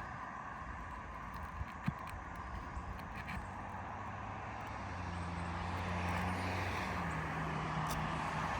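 A motor vehicle engine humming and growing louder through the second half, its pitch dropping slightly near the end, over steady outdoor background noise, with a few light taps in the first couple of seconds.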